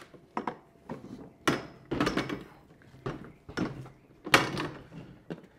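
Plastic knocks and clunks of a TACK LIFE 40 V battery lawn mower being set on a table and its folded handle swung up and locked. Several separate sharp knocks, the loudest about a second and a half in and again near the end.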